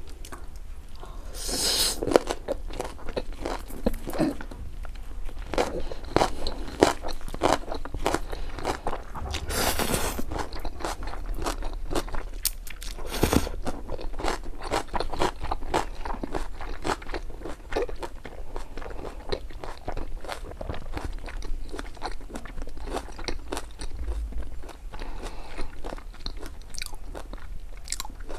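Close-miked eating sounds: a person crunching and chewing mouthfuls of spicy ramen noodles and crisp raw greens, with many small wet clicks. Louder bursts come about two seconds and about ten seconds in.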